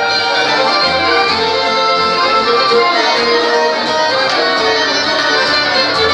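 Live band playing traditional music, led by an accordion, with guitars strumming along.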